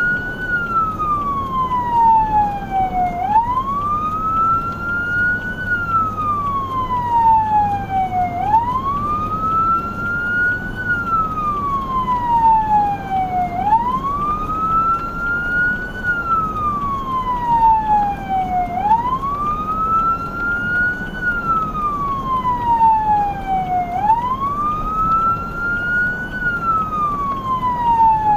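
Emergency vehicle siren on a slow wail, its pitch rising and falling in a cycle of about five seconds, with a steady low rumble underneath.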